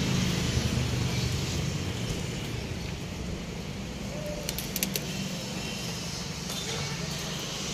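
Steady outdoor background noise with a low hum, and a brief run of light, sharp clicks about halfway through.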